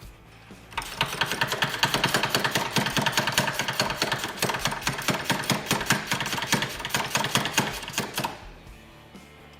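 Impact wrench rattling steadily for about seven seconds, driving in the brake caliper bolts. It starts about a second in and stops near the end.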